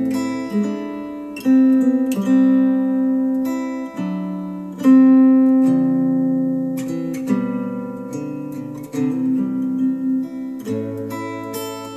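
Acoustic guitar music played back through Cambridge Audio SX50 bookshelf speakers: plucked notes and chords that ring out and fade, a new one every second or two.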